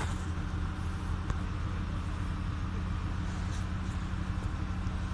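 Diesel engine of a truck-mounted crane running steadily, a constant low hum, while it holds a suspended cabin on its chains.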